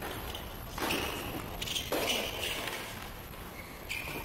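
Tennis ball struck by rackets in a doubles rally: three sharp hits, about a second in, about two seconds in and near the end, each with a short ring after it.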